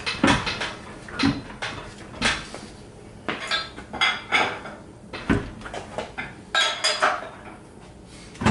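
Metal tools knocking and clinking on engine hardware: an irregular series of sharp metallic knocks, about one a second, some of them ringing.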